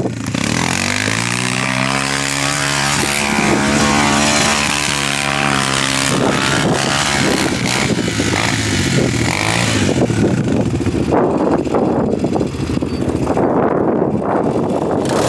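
ATV engine revving up, holding a steady pitch for a few seconds, then dropping off about six seconds in. After that the engine runs rougher and more unevenly under rushing noise.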